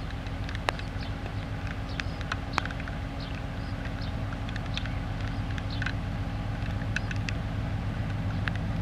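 M62 diesel locomotive's two-stroke V12 diesel engine running with a steady low drone as the locomotive slowly approaches hauling a freight train, growing a little louder in the second half. Short high chirps and sharp ticks sound over it.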